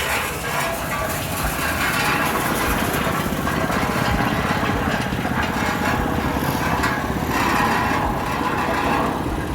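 Small 7 HP petrol engine on a quarter-bag mini concrete mixer, running steadily as it drives the drum.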